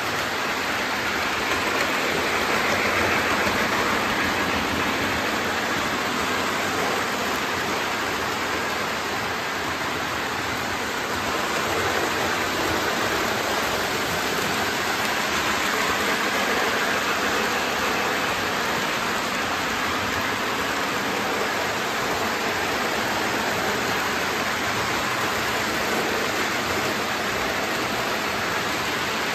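Lionel O-gauge model trains running on metal three-rail track: a steady rolling rumble that swells a little at times.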